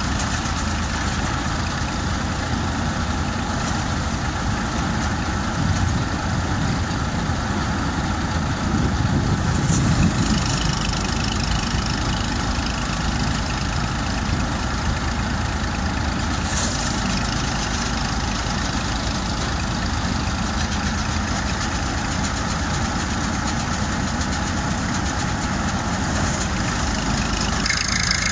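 Massey Ferguson tractor's diesel engine running steadily while it drives a paddy thresher through a shaft, the threshing drum whirring and rattling as bundles of rice are fed in. Briefly louder about ten seconds in.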